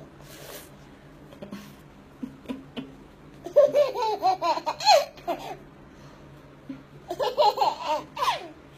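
A toddler laughing in two bouts of quick, high-pitched giggles, the first about three and a half seconds in and the second near the end.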